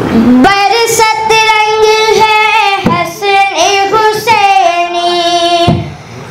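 A boy singing a manqabat, a Sufi devotional song, into a microphone without accompaniment, holding long notes with slides between them. He breaks off near the end.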